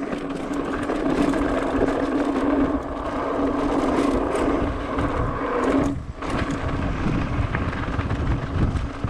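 Mountain bike running fast down a dirt and loose-rock trail: tyres rolling and the bike rattling over stones, with wind on the action camera's microphone and a steady hum. The noise drops out briefly about six seconds in.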